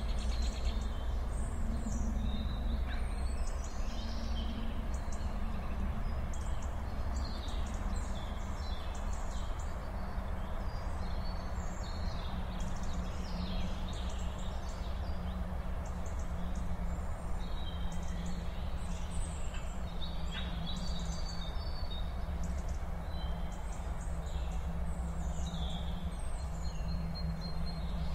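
Outdoor ambience of many small birds chirping and whistling in short calls throughout, over a steady low rumble.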